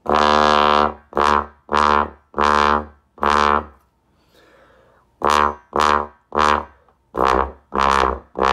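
Bass trombone played through a Windy City straight mute in its low register. First five detached notes, the first one held about a second, then a pause, then six more. The player finds the mute's low range stuffy and says it goes down to only about a G, with no low C's.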